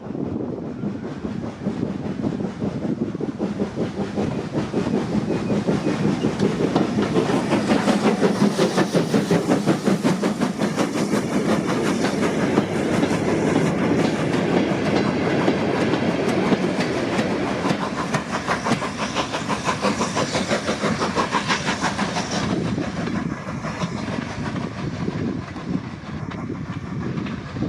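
Steam locomotive hauling a train past at speed: fast, rhythmic exhaust beats and wheel clatter build to a peak about a third of the way in, then ease off as it draws away.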